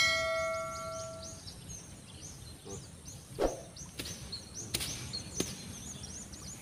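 A ringing metallic tone at the start that dies away over about a second and a half, over a steady chorus of short, high, repeated chirps from wildlife. A soft thud comes about halfway, then a few sharp clicks.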